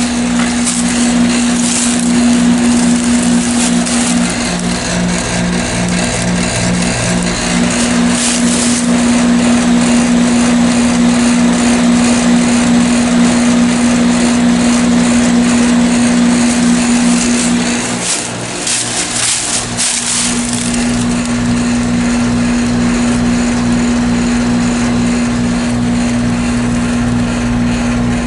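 Outdoor air-conditioning unit running in cooling mode: a steady compressor hum with a pulsing beat beneath it and the condenser fan's whoosh. The hum briefly drops out and the level dips about 18 seconds in, then it returns.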